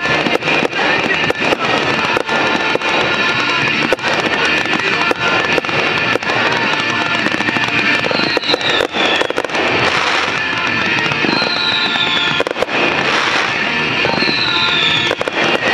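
Fireworks finale barrage: many shells bursting and cracking in rapid, unbroken succession, with music playing underneath.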